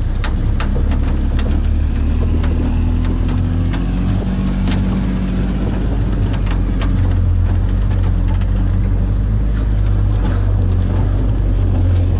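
Off-road vehicle's engine running steadily at crawling speed, its pitch rising a little about three seconds in, with frequent knocks and clicks of branches and grass striking the body and a brief scraping hiss near the end.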